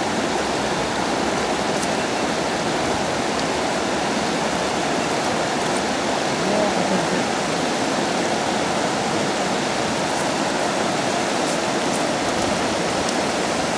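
River water rushing steadily, an even unbroken wash of flowing water.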